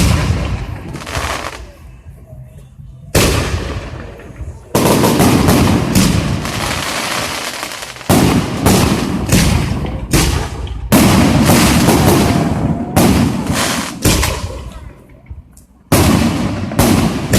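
Fireworks going off: a string of sharp bangs, each trailing off in a rumbling decay, coming in quick succession through the middle and more spaced out near the end.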